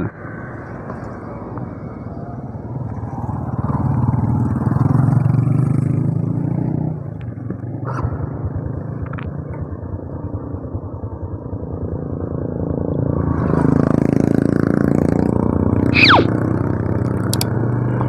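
Honda Revo 110 motorcycle's single-cylinder four-stroke engine pulling away and riding, growing louder over the first few seconds, dipping briefly about seven seconds in, then building again. A short falling whistle sounds about two seconds before the end.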